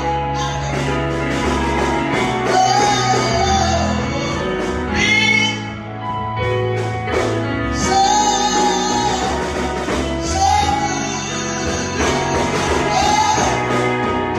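Gospel music: a singer's voice over a band with sustained chords and bass.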